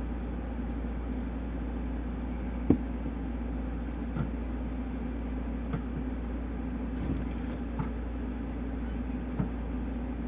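Steady low background hum with a few light taps and clicks over it, the loudest a sharp knock about two and a half seconds in.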